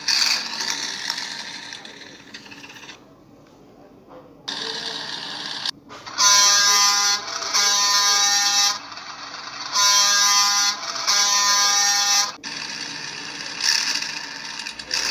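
A buzzing electronic horn-like tone sounds four times, in two pairs of about a second each, starting about six seconds in.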